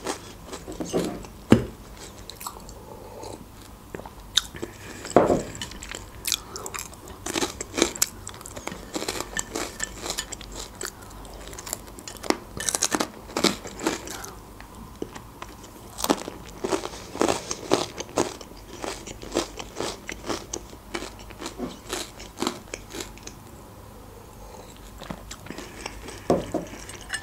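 Close-up chewing and biting of small pieces of fried sausage, with irregular wet mouth clicks and crunches throughout.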